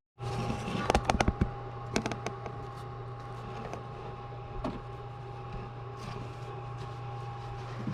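Hand tools and a socket clicking and clattering against metal for the first couple of seconds, then a few scattered light clicks over a steady hum.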